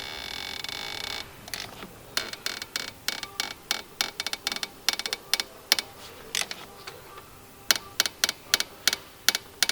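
A ratchet-head torque wrench clicking in a quick even rhythm as it is swung back and forth, tightening the AC compressor's mounting bolts, after a brief steady whir at the start.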